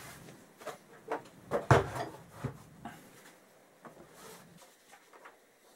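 Tools and their case being handled and put away on a workbench: a run of sharp knocks and clicks, the loudest nearly two seconds in, growing sparser and fainter after about three seconds.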